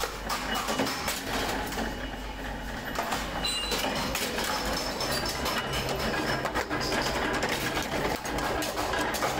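Flywheel mechanical power press running, its punch striking repeatedly as holes are punched in a steel motorcycle mudguard: a busy, rhythmic metallic clatter over a steady hum, with a low drone joining about halfway through.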